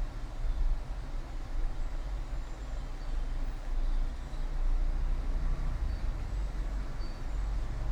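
Steady blowing hum of a hot-air rework station heating the A10 CPU on an iPad logic board to soften its underfill glue for removal.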